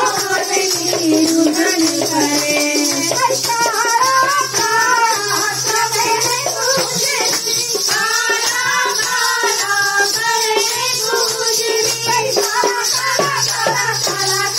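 A woman singing a Hindi devotional bhajan through a handheld microphone in short rising and falling phrases, over a steady high shaker-like rattle of percussion and a low sustained drone.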